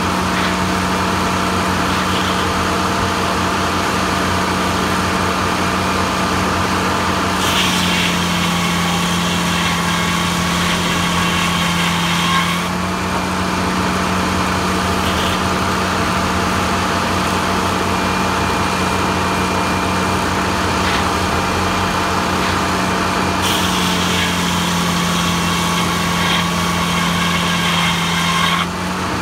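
Circular sawmill running with a loud, steady drone from the blade and its drive. Twice, for about five seconds each (about eight seconds in, and again from about 23 seconds), the blade cuts through the log: a harsher high sawing noise comes in and the hum's pitch sags slightly under the load.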